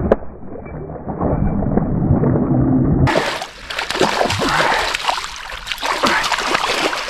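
Water splashing and sloshing as a hooked trout thrashes at the surface while being landed. For the first three seconds the sound is muffled, then the splashing comes through clear; a sharp click just after the start.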